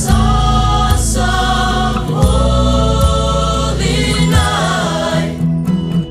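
Christmas choral music: a vocal ensemble singing sustained chords over instrumental backing with a steady bass. Near the end the upper sound thins out and the level dips briefly.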